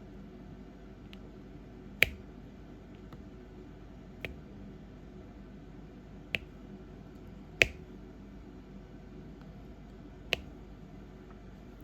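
Five sharp clicks at uneven intervals, the fourth the loudest, over a steady low hum: small taps from diamond-painting work, a pen setting resin drills on the canvas.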